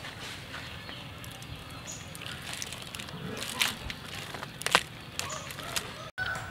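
Live giant river prawns being handled in a plastic colander: their shells and claws click and rustle against each other and the plastic, with two sharper clicks about three and a half and four and a half seconds in.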